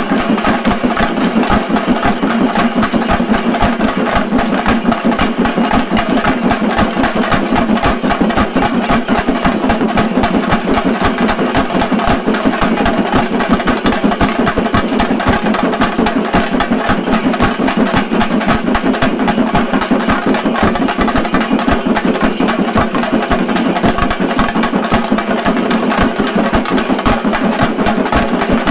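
Chenda drums in a shinkari melam ensemble, played fast and continuously as dense rapid strokes at an even loudness.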